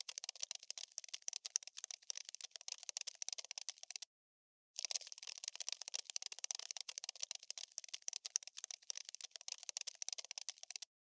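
Cockroach scuttling sound effect: a dense run of rapid, dry clicks and scratches that stops dead for under a second about four seconds in and again just before the end.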